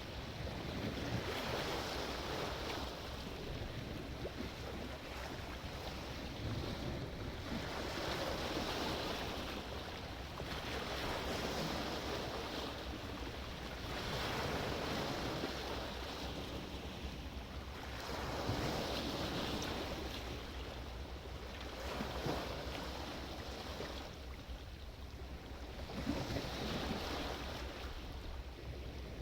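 Sea surf: waves breaking one after another, the wash swelling and fading every few seconds.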